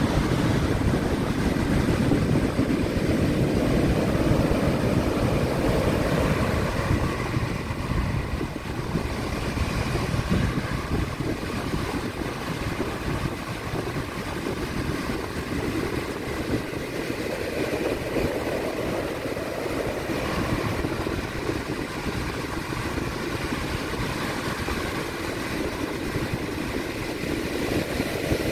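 Heavy surf from a storm swell breaking onto a sand beach: a continuous rush of churning whitewater, louder as the bigger waves break near the start and again about two-thirds of the way through.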